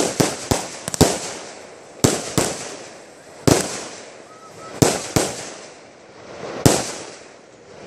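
Consumer aerial fireworks going off: about ten sharp bangs, several in quick succession in the first second, then single bangs every second or so, each trailing off with an echo.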